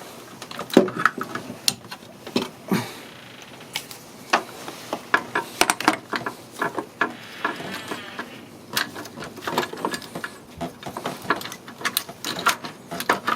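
Hand tools and loose metal parts clicking and clinking while a timing-belt pulley is unbolted and taken off the engine: many sharp, irregular clicks and knocks, some in quick runs.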